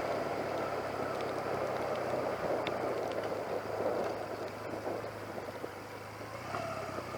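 Motorcycle riding in torrential rain: a steady low engine note under a broad hiss of wind, rain and tyre spray, easing slightly towards the end, with a faint whine coming in near the end.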